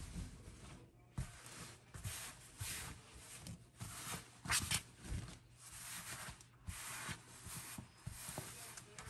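Rayon twill fabric rustling and swishing as hands spread and smooth it, in short irregular bursts with a few sharper rubs, over a faint steady low hum.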